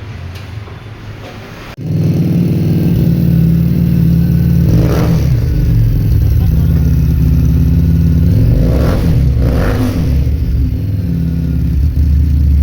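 Motorcycle engine running loud, starting abruptly about two seconds in, with a few short blips of the throttle.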